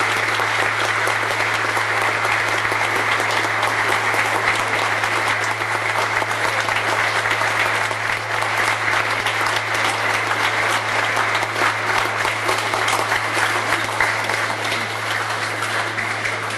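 Audience applauding, a dense steady clapping that tapers off near the end, with a steady low hum underneath.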